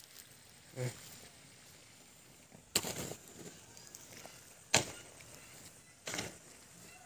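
A few sharp knocks over a faint background hiss, the two loudest about two seconds apart near the middle: handling bumps on a handheld phone carried while walking.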